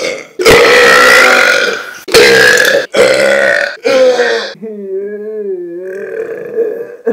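Human burps, several loud ones back to back, the first lasting over a second. About two-thirds of the way through comes a quieter, drawn-out burp whose pitch wavers.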